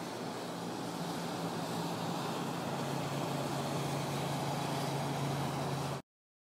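Road traffic: a steady rush of passing vehicles with a low engine hum that grows stronger, cut off abruptly about six seconds in.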